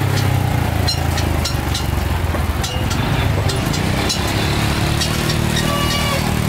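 Motor vehicle engines running on a busy market street, with scattered short clicks and clatters over the steady engine sound.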